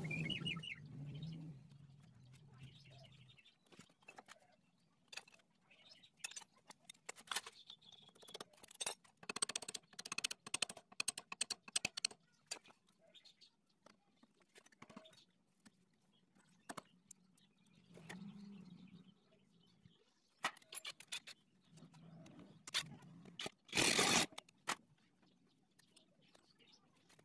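Scattered metallic clicks and clinks of hand tools and engine parts as the flywheel rotor is fitted back onto the crankshaft of a Honda Astrea Grand motorcycle engine, with one louder clank near the end.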